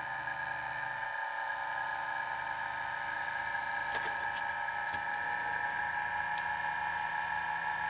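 Pulse motor running at about 1,500 RPM, its spinning magnet rotor and pulsed drive coil giving a steady high-pitched whine of several tones, with a faint click about halfway through.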